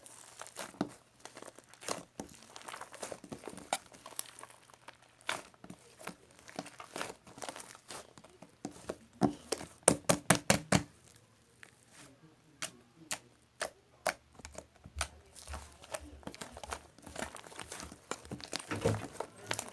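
Close-up crinkling and clicking from objects being handled near the microphone, with a quick run of louder taps about halfway through.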